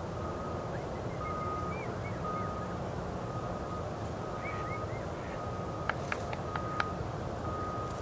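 Steady low outdoor rumble by a calm river. Over it, a faint high beep repeats about once a second, a few faint bird chirps come and go, and four or five sharp ticks fall about six seconds in.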